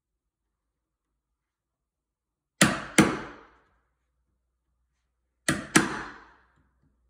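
Hammer striking a wood chisel as it cuts the edges of a mortise in a wooden newel post. Two sharp blows about half a second apart, then two more about three seconds later, each dying away within about half a second.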